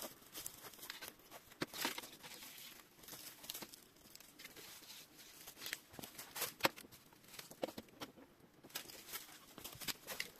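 Footsteps crunching through dry leaf litter and twigs: irregular rustles and small snaps.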